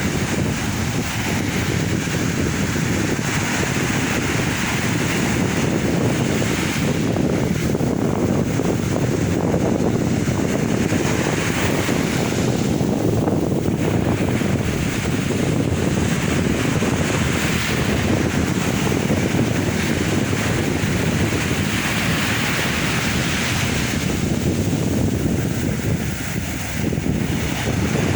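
Sea waves washing onto the shore, a steady rush that surges every few seconds as each wave comes in, with wind buffeting the microphone.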